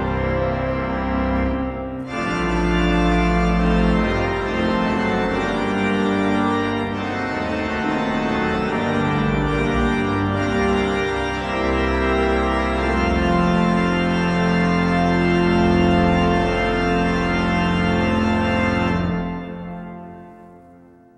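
Digital organ sounding virtual cathedral pipe-organ samples, playing loud sustained full chords over deep pedal bass, with a short break about two seconds in before a new chord. Near the end the final chord is released and dies away in reverberation.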